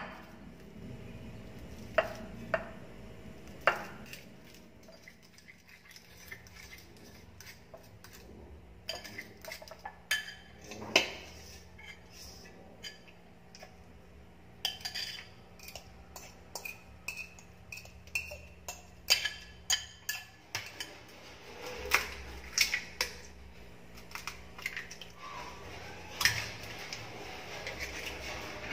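A fork and spatula clinking, tapping and scraping against a ceramic plate and a stainless steel mixing bowl as ripe bananas are mashed and scraped into creamed butter and sugar. The knocks come at an irregular pace throughout, over a faint steady hum.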